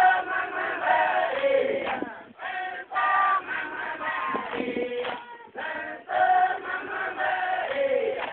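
A large group of voices chanting together in chorus, in short phrases separated by brief pauses.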